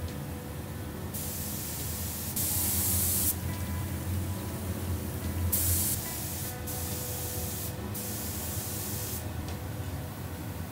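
Handheld gravity-feed air spray gun hissing in several bursts of a second or two each as it sprays paint onto badminton racket frames.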